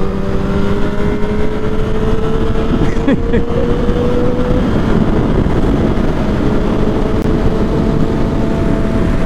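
Motorcycle engine running at road speed under wind rush, its pitch rising slowly for the first few seconds and then holding steady.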